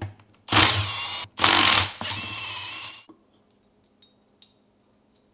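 Cordless impact driver with a 12 mm socket running on the cylinder head bolts of a Briggs & Stratton Vanguard V-twin, loosening them. It gives two loud runs of about a second each, then spins more quietly for another second and stops about three seconds in.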